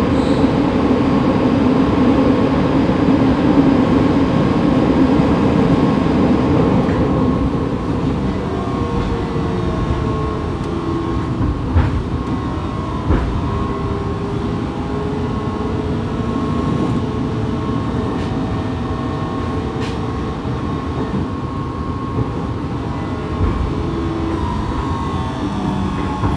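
Fukuoka City Subway 2000 series train car running, heard from above its Hitachi GTO-VVVF inverter: steady wheel and running noise with a high steady whine and motor tones. The noise is heaviest for the first several seconds, then eases, and near the end a few tones fall in pitch.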